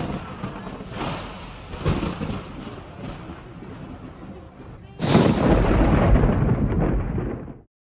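Thunderstorm: rumbles and cracks of thunder, then a sudden much louder crash about five seconds in that cuts off abruptly near the end.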